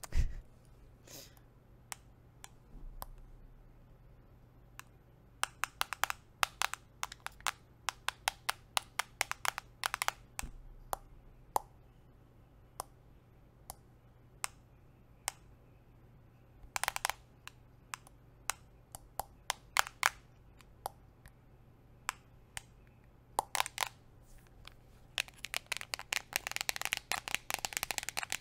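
Metal nail rings tapping and clicking on a smartphone: scattered single taps and short quick runs, turning into a fast, dense flurry of tapping in the last few seconds.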